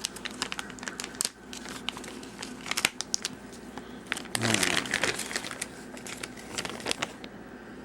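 Packaging being opened by hand: irregular crinkling, crackling and rustling, with a denser stretch about four and a half seconds in, stopping about seven seconds in.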